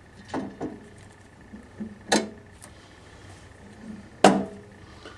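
Wood stove loading door being slid back onto the stove: two light knocks, then two louder metal clanks with a short ring, the loudest about four seconds in.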